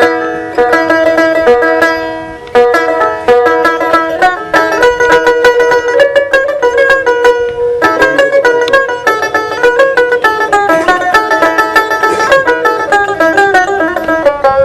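Dotara, the Bengali folk long-necked plucked lute, played in a quick run of plucked melody notes, with a short drop in loudness a couple of seconds in before the playing picks up again.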